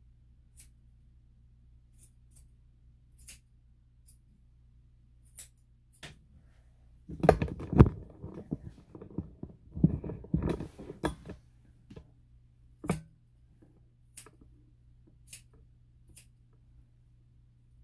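Single sharp clicks or snips every second or so, with a few seconds of louder rustling and handling noise in the middle.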